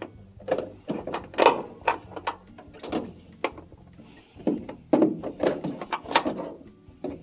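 Rubber water hoses and their clamps being gripped and worked on a washing machine's plastic dispenser housing: irregular knocks, clicks and short scrapes of hose and clamp against plastic and sheet metal.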